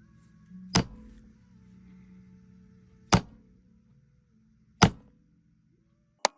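Mallet striking a border stamp into veg-tan leather: three sharp single strikes about two seconds apart, then a quicker run of strikes starting at the very end.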